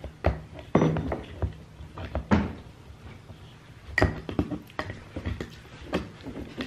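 Irregular metal clicks and clanks of a handheld can opener worked on a can of pumpkin purée, with the strongest knocks about one, two and a half and four seconds in. The opener cuts poorly and the lid is only partly open.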